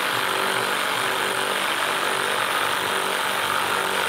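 ACDelco cordless electric ratchet running steadily under power, tightening a fastener on the intake.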